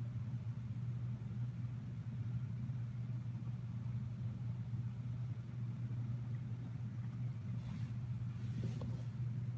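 Domestic cat purring, a steady low rumble close to the microphone, with soft rustling of fur near the end.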